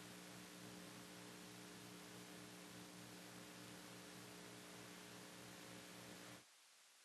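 Faint, steady electrical hum over light hiss: noise in the recording itself, with no sound of the game. It cuts off abruptly near the end.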